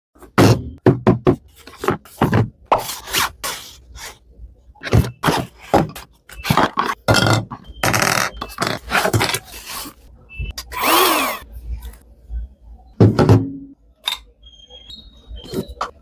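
Cardboard box and hard plastic vacuum-cleaner parts being handled: a quick string of knocks, thunks and scrapes as pieces are unpacked and set down on a table, with one longer scrape about eleven seconds in.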